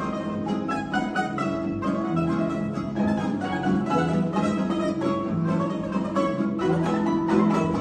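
A plucked-string quartet of two small folk instruments, a classical guitar and a bass balalaika playing live, with quick plucked notes over a steady bass line.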